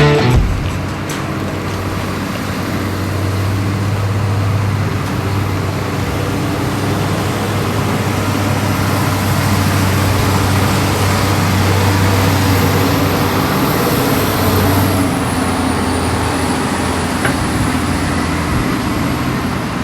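Wheel loader's diesel engine running steadily as it pushes a dead loader along; its note shifts about fifteen seconds in.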